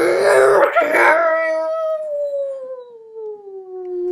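Werewolf howl: a loud, rough cry for about the first second, then one long howl sliding slowly down in pitch.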